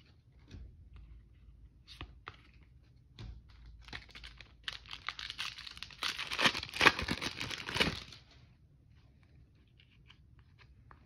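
Foil wrapper of a trading-card pack being torn open and crinkled, a dense crackling that starts about four seconds in and stops around eight seconds. A few light clicks come before it.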